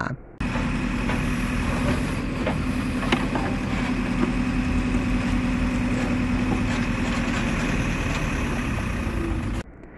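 Diesel engine of a backhoe loader running steadily as its bucket digs soil and mud out of a drainage canal, with a few light knocks.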